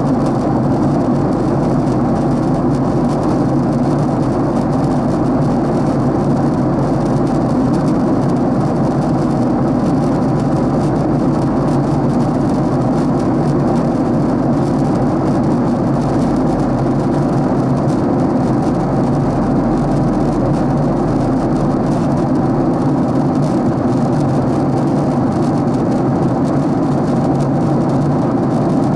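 Cabin noise of a Boeing 767-300 airliner in cruise: a steady, unchanging roar of airflow and its two turbofan engines, heard inside the cabin at a window seat by the wing, with a few steady low hums in it.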